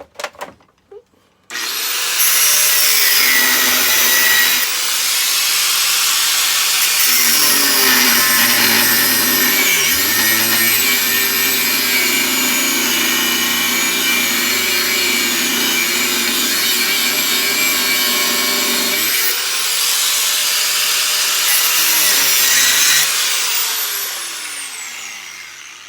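Electric grinder switched on and grinding steel, its sound shifting as the work is pressed against it, then switched off and spinning down with a falling whine.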